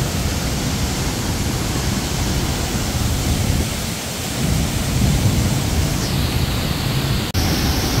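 Ouzoud waterfall heard up close: a loud, steady rushing roar of falling water, heaviest in the low end. It cuts out for an instant near the end.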